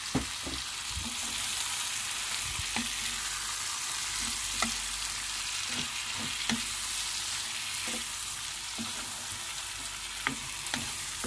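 Shrimp frying in butter in a pan, with a steady sizzle, while a wooden spatula stirs them, giving irregular knocks and scrapes against the pan.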